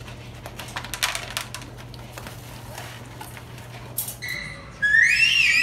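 German shepherd crunching dry kibble from a bowl, heard as irregular clicks and crackles. Near the end a loud, high-pitched wavering squeal takes over.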